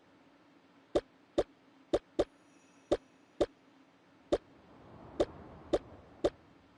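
A series of about a dozen light, sharp knocks and clacks at uneven intervals, like hard items being set down one after another.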